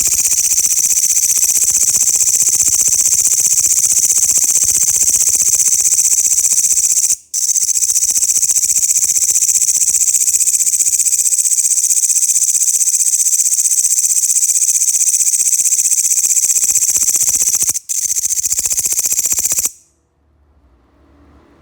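Grasshopper stridulating: a loud, continuous, high-pitched buzz. It breaks off briefly twice and stops shortly before the end.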